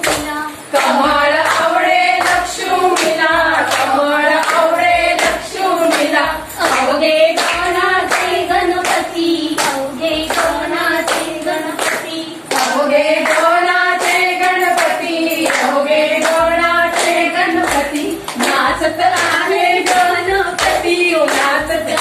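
A group of women singing a song together while clapping a steady beat by hand.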